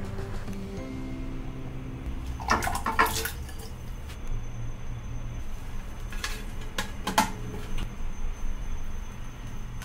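Water splashing as sliced sweet potato goes into a saucepan of water, in two short bursts, about two and a half seconds in and again about seven seconds in, over a low steady hum.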